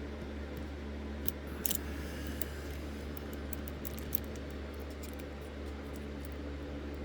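Light metallic ticks and scrapes of a lock pick working the pin stacks of a Schlage Century deadbolt cylinder under a tension tool, a few sharp clicks scattered over a steady low hum. The picker suspects the pins are sticking up in the bible of a defective lock.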